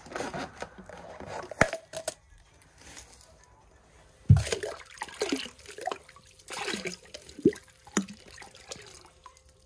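A knife cuts through a plastic bottle with crackly clicks. About four seconds in comes a thump, then water splashes and sloshes as the cut-down bottle is dunked into the slushy water of an ice-fishing hole.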